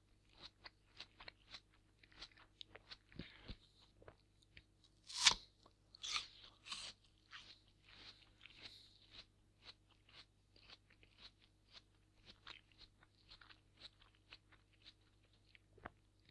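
A crisp fresh apple being chewed: a run of small, faint crunches about two a second, with a louder crunch about five seconds in and a few more crunches just after.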